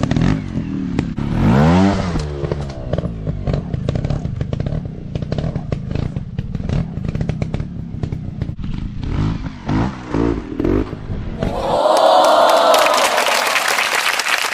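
Dirt bike engine revving up and dropping back, with clattering and scraping knocks throughout. About twelve seconds in the engine sound stops and a steady hissing noise takes over.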